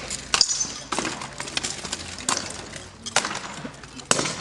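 Swords and shields clashing in a staged medieval fight: a run of sharp metallic and wooden strikes at irregular intervals, about one a second.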